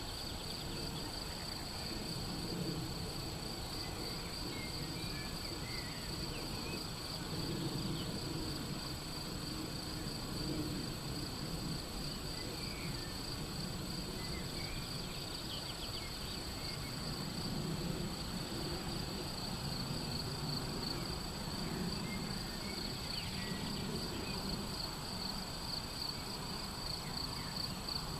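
Crickets chirping in a steady, fast-pulsing high trill, with a few short bird chirps scattered through and a soft low rustling that comes and goes.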